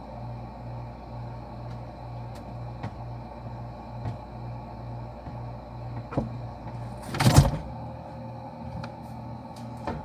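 Refrigerator running, heard from inside the cabinet as a steady pulsing hum. A click about six seconds in, then a loud rustling knock about seven seconds in as the fridge door is opened, after which the deepest part of the hum drops away.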